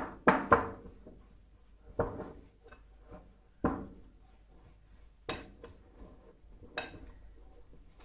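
A metal spoon clinking and scraping against a ceramic bowl while stirring poppy seed paste and sugar together. There are sharp clinks every second or two, with fainter scraping between them.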